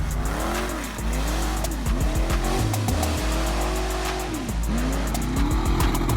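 A car engine revving up and down several times, once held high for about two seconds mid-way, over hip-hop music with a heavy bass beat.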